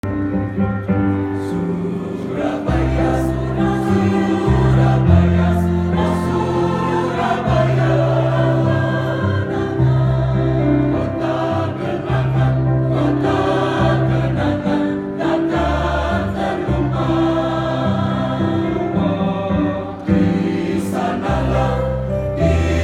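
A band playing music, with a group of voices singing together in chorus over held bass notes that change every second or two.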